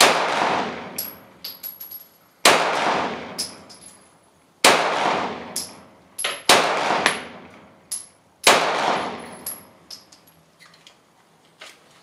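Five 9mm pistol shots from a Glock 17 in a Roni G2 carbine conversion, fired one at a time about two seconds apart, each sharp crack trailing off over a second or more. Each shot is followed by a few lighter metallic clinks.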